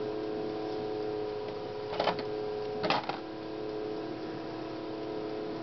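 A steady mechanical hum of several tones, with two short noises about two and three seconds in.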